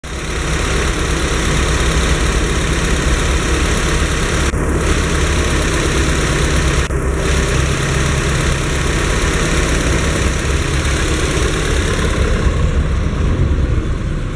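Peugeot 306's 1.8-litre LFZ four-cylinder petrol engine idling steadily, heard close under the open bonnet. Its higher hiss fades from about two seconds before the end.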